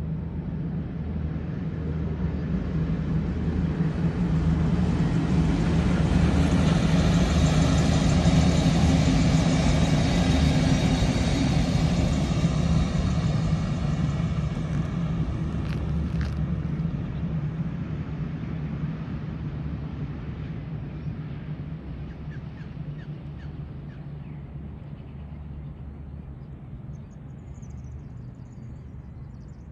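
V/Line VLocity diesel railcar set passing by under power, its engines' steady low drone growing louder to a peak about eight to ten seconds in and then fading as it runs away. A faint high whine rides over the loudest part.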